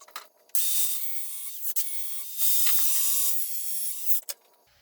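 Grinder cutting through the thin sheet-metal housing of a power strip: a hissing cut with a steady high whine that starts about half a second in, gets louder for a stretch in the middle and stops abruptly about four seconds in, followed by a short knock.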